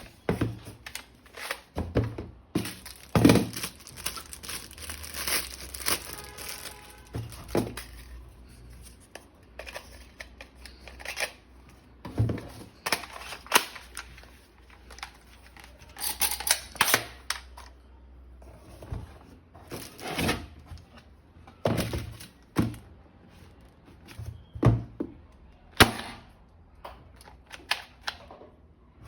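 Irregular plastic clicks and knocks, with some tearing and crinkling of packaging, as an M416 toy gun is unboxed and handled.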